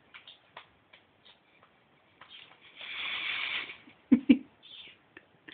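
A baby between cries, mostly quiet: small rustles, a breathy hiss about three seconds in, then two short low grunts about a second later.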